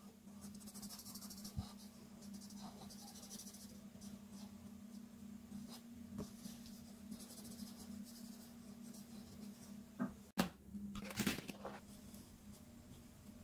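Art marker tip stroking across paper in two spells of soft, high scratchy hiss, with a few light clicks between them. About ten seconds in there is a short, louder burst of handling noise. A faint steady low hum runs underneath.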